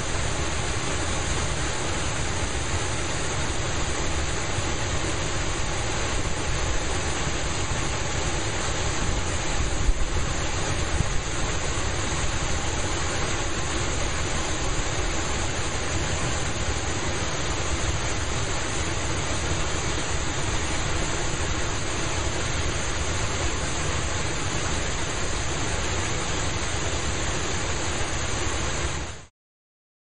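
Waterfall and rocky cascades: a steady, dense rush of falling water that cuts off suddenly near the end.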